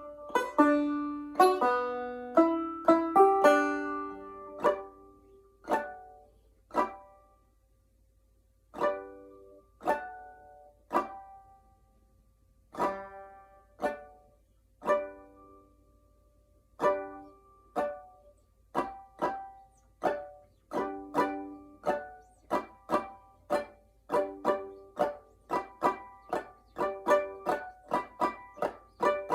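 Solo five-string banjo played clawhammer style in open G tuning. A run of quick notes gives way to slower single plucked notes, each left to ring, with a short pause near the middle. The picking then speeds up again toward the end.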